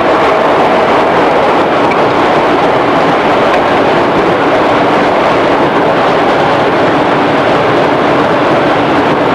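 Interior running noise of a JR East 211 series electric train, heard inside a motor car: a steady, loud rumble of wheels on rail and traction motors, with no change in pitch.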